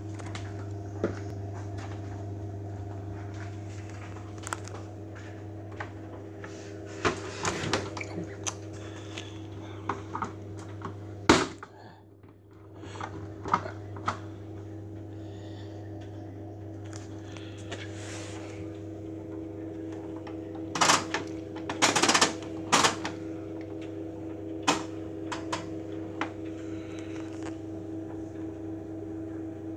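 Beko Eco Care WMA 1510 W washing machine running a wash cycle: a steady hum with irregular clicks and knocks. The knocks are loudest about eleven seconds in and again around twenty-one to twenty-three seconds, and the hum dips briefly just after the first of these.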